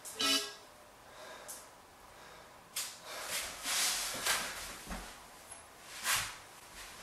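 A person breathing hard while recovering between exercises: a few loud sharp exhales and breaths, with soft rustling as she shifts on an exercise mat.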